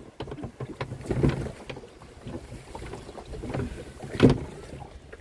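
Canoe paddle strokes splashing and churning water, with two stronger strokes about three seconds apart.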